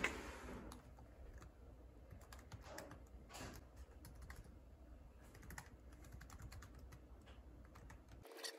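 Typing on a Lenovo ThinkPad 11e Chromebook's keyboard: faint, irregular key clicks.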